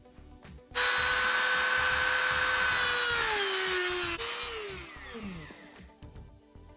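Dremel rotary tool with a cut-off wheel cutting a screw held in a vise: a high steady whine starts about a second in and gets louder as the wheel bites into the screw, its pitch sagging under the load. Just after four seconds it is switched off and winds down with a falling whine.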